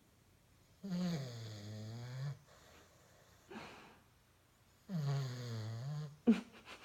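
Snoring: two long, drawn-out pitched snores about four seconds apart, with a short faint breath between them. Near the end comes a sudden sharp snort with a brief flutter after it.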